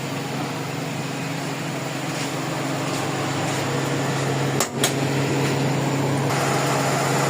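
Toyota 4A-FE four-cylinder engine idling with a steady hum that grows slightly louder, with two quick clicks a little past halfway. This is the engine the owner says misfires and idles unevenly.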